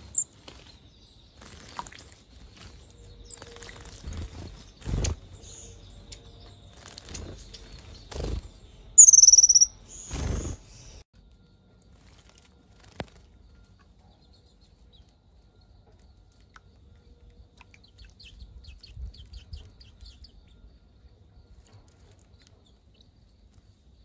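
Small songbirds bathing in a bird bath: several short splashes and wing flutters in the water, with high chirps. The loudest sound is a sharp, high call falling in pitch about nine seconds in. After about eleven seconds it is much quieter, with only faint chirps.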